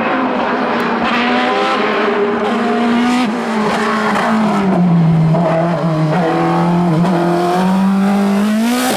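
Race car engine running hard on a hillclimb course: its pitch drops about three to four seconds in as the car slows, holds low, then climbs again near the end as it accelerates away.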